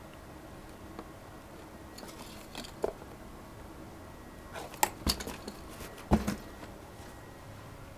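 A Maine Coon cat playing with a plush toy on a cardboard box in a wire pet cage: rustling and a few sharp knocks and clicks, in three short clusters a couple of seconds apart, the loudest knocks coming about five and six seconds in.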